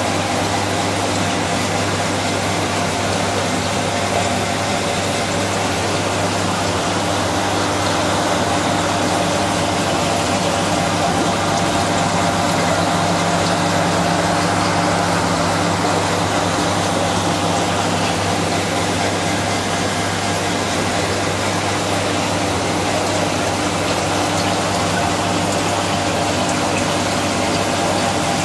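Aquarium pump running with a steady hum under the constant rush of circulating water.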